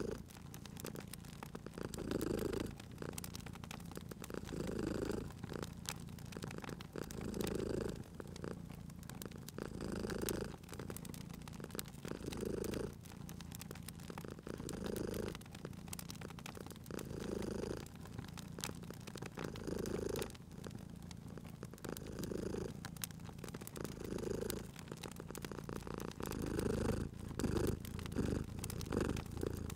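Domestic cat purring in slow swells about every two and a half seconds, coming quicker near the end, over the steady small pops and crackles of a wood fire.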